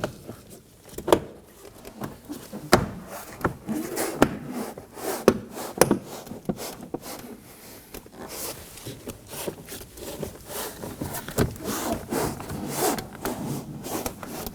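Interior front door trim panel of a Toyota Corolla being pressed onto the door: irregular sharp clicks and knocks as its plastic retaining clips snap into the door, with hands rubbing and scraping over the panel between them.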